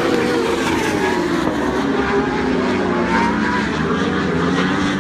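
World Superbike racing motorcycle engines running hard, several engine notes together. Their pitch falls through the first half and then climbs again.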